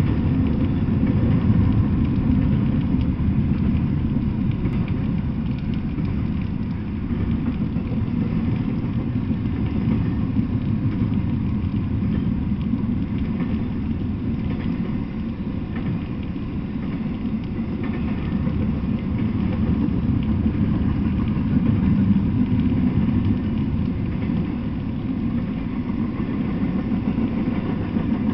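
Double-stack intermodal freight train of container well cars passing: a steady rumble of wheels on the rails.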